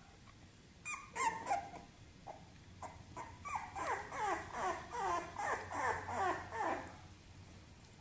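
Bulldog puppy yapping at a littermate in play: two sharp yips about a second in, then a run of short whiny yaps, each sliding down in pitch, about two a second, stopping near the end.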